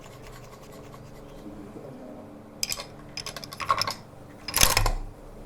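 Scratching and rustling handling noises in three short bursts, the last about four and a half seconds in the loudest.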